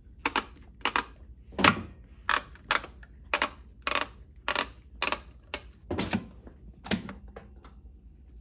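Juki LU-2810A-7 walking-foot industrial lockstitch sewing machine cycling slowly with no fabric under the foot, its alternating presser feet and needle mechanism clacking in an even rhythm of just under two clicks a second.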